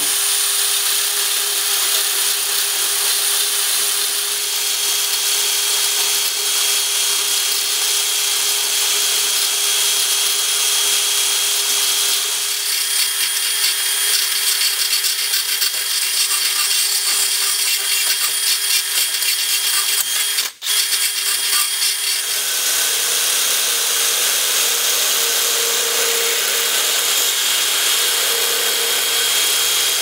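Power drill spinning a grinding burr inside a steel socket, grinding out its inside: a continuous high grinding whir. It breaks off briefly about two-thirds of the way through, and the grinding carries on with a slightly different sound.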